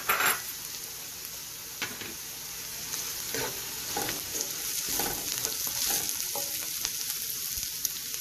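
Vegetables sizzling in ghee in a granite-coated pan as they are stirred, with irregular scraping strokes through the steady hiss; a louder burst right at the start as frozen peas go into the pan.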